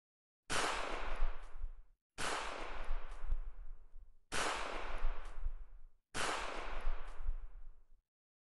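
Four dubbed gunshots about two seconds apart. Each is a sudden bang with a long echoing tail that is cut off abruptly.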